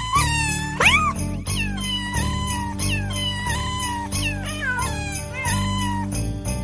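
Cat meowing repeatedly over background music with a steady bass line. Each meow bends in pitch, and the loudest, about a second in, sweeps upward.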